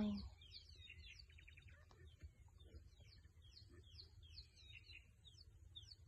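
Small birds chirping and trilling steadily in the background: many quick, short downward notes with a couple of buzzy trills, faint over a low steady rumble. A falling voice ends right at the start.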